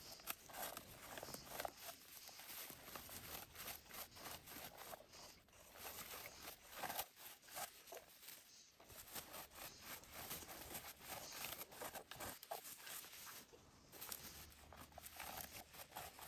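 Faint, irregular rustling and scraping of a berry scoop being combed through low wild blueberry bushes, in quick short strokes.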